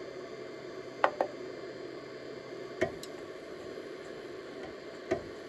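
A few light, sharp clicks from the controls of a Monoprice Select 3D printer being worked by hand to raise the print head, over a steady low hum.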